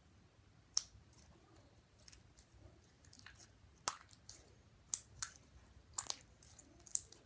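Blue slime being squeezed and kneaded in the hands, giving irregular wet pops and crackles as air pockets burst, the loudest about four seconds in.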